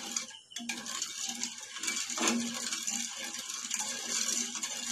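Steel ladle stirring sugar and water in a metal kadai, scraping and clinking against the bottom of the pan in a run of small clicks, as the sugar is dissolved for syrup.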